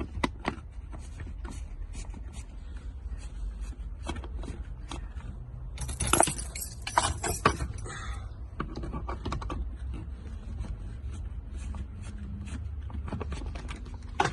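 Small clicks, ticks and rattles of screws and plastic and metal parts handled while a car's steering-column horn assembly is unscrewed and taken apart, with a louder scraping rattle about six seconds in. A steady low hum runs underneath.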